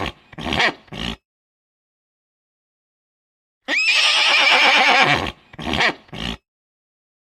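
Horse whinnying. A few short calls come at the start, then after a pause one long, quavering whinny that starts with a quick rise in pitch, followed by two short calls.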